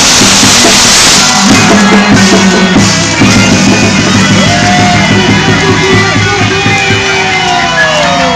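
Loud music accompanying a quadrilha junina dance performance.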